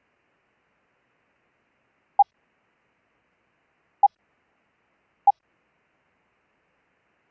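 Morse code (CW) audio tone sent as single dits: three short, identical mid-pitched beeps, the second about two seconds after the first and the third about a second after that.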